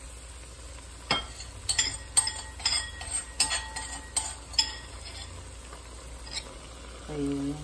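A cooking utensil clinking and scraping against a nonstick wok, about a dozen quick knocks over a few seconds and one more a little later, as beaten egg is stirred into sliced bitter melon.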